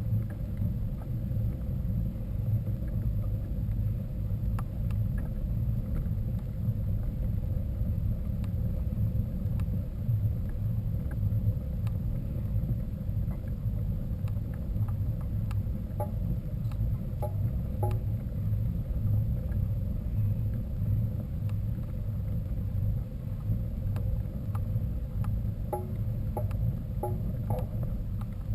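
Steady low rumbling noise throughout, with a few faint short chirps about two-thirds of the way in and again near the end.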